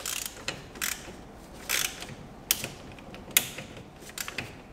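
Hand ratchet and socket clicking in short strokes as a small bracket bolt is snugged up to a light torque, with a few sharp metal clicks and knocks about once a second.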